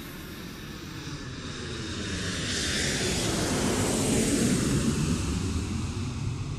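Airplane flying past: the engine noise builds over a few seconds, is loudest a little after the middle with a falling pitch as it passes, then eases off.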